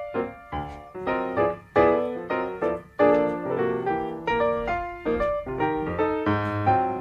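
Background piano music, a steady run of notes that each ring and fade.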